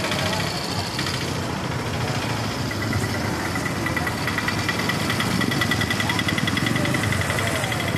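City street traffic with a vehicle engine idling close by. A thin, high, pulsing whine comes in about three seconds in and runs on to near the end.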